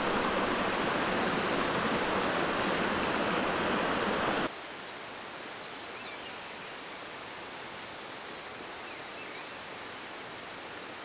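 Waterfall rushing steadily and loudly; about four and a half seconds in it cuts abruptly to a quieter, steady water rushing with a few faint high chirps.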